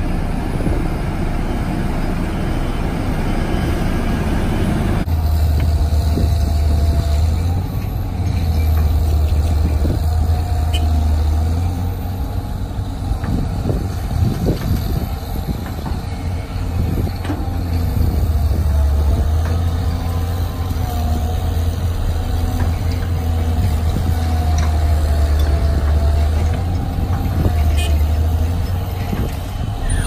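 A LiuGong padfoot roller's diesel engine running, then, about five seconds in, a Caterpillar 320B excavator's diesel engine working under load. Its deep drone eases off and comes back every few seconds as it digs, with a faint wavering hydraulic whine and scattered knocks of the bucket and soil.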